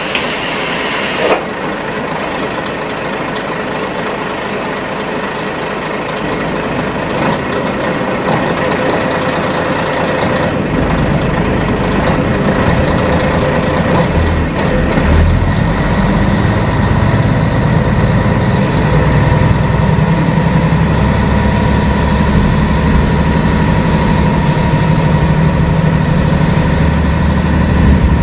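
Interior sound of a Kashima Rinkai Railway 6000-series diesel railcar. A brief hiss of air comes at the start, then the diesel engine idles. About ten seconds in, the engine throttles up and its low drone grows stronger as the railcar pulls away and gathers speed.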